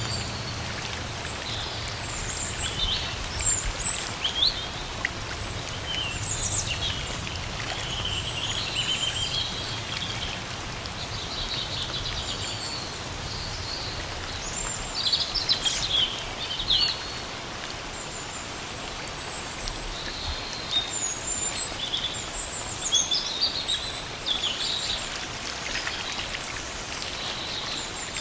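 Steady rain hissing through forest trees, with birds singing short chirps and trills on and off throughout, in clusters a few seconds in, around the middle and again later.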